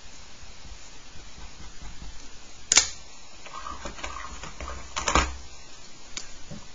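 Pencil clacking down onto a plastic set square on a desk, then a second, rattly cluster of clicks from pencils being handled, over a faint steady hiss.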